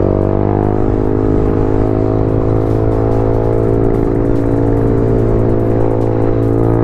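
Motorcycle engine running at a steady cruising speed, its pitch rising slightly in the first second and then holding even.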